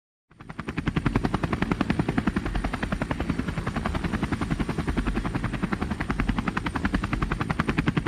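Propeller aircraft engine sound effect: a steady drone made of rapid, even chopping pulses, fading in just after the start.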